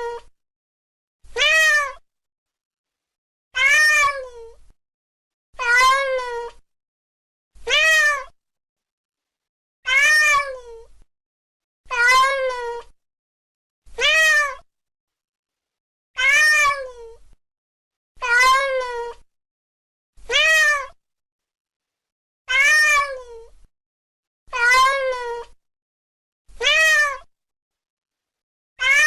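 Domestic cat meowing: one short meow that rises and then falls in pitch, repeated about every two seconds with silence between, the meows nearly identical as in a looped recording.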